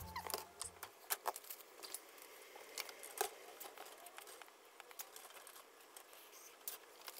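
Light clicks and metallic rattles of wire mesh panels being handled while plastic cable ties are threaded through the grid to join them.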